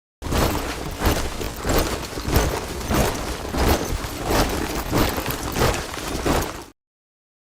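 A squad of soldiers marching in step, boots striking the ground together about twice a second. It cuts off suddenly near the end.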